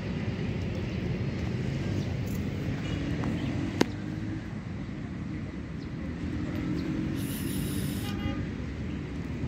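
Steady low rumble of road traffic, with one sharp click about four seconds in.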